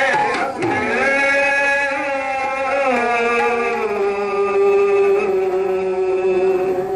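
Sikh kirtan: male voices singing a shabad in Raag Maligaura over harmoniums. They hold long notes that glide and step downward, settling on one long sustained note from about four seconds in.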